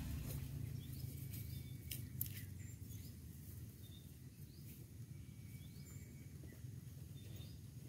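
Faint outdoor ambience: a low steady rumble with scattered short, faint chirps and whistles of distant small birds, and a couple of faint clicks about two seconds in.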